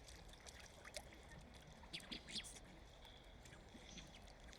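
Faint trickling water with scattered small drips and splashes, close to near silence.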